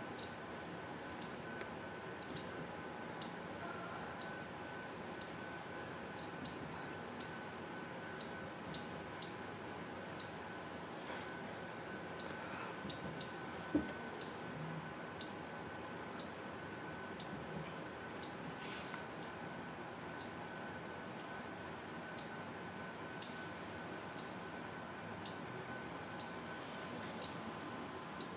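Honeywell fire alarm control panel's buzzer sounding a high-pitched pulsed beep, about a second on and a bit less off, repeating steadily.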